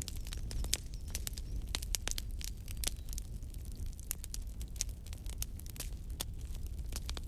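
Wood fire crackling in a fireplace: irregular sharp snaps and pops, several a second, over a steady low rumble of burning.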